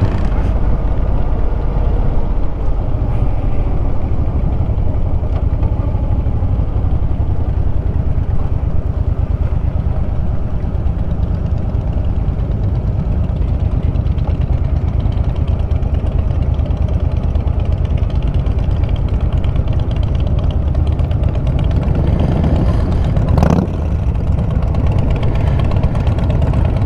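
Suzuki Boulevard M50's V-twin engine running steadily with a low rumble. There is a single short click near the end.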